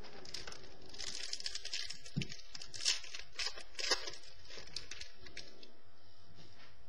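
Trading cards being handled and slid through the hands, with light crinkling and rustling and a few sharper ticks, busiest in the middle.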